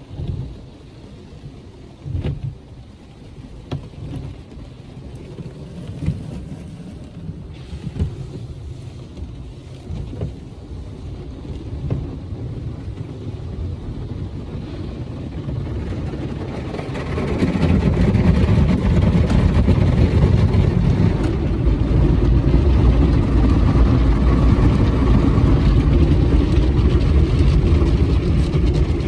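Car wash tunnel equipment heard from inside the car: cloth brushes slap against the body with soft thumps every couple of seconds. About seventeen seconds in, a much louder steady rushing noise takes over.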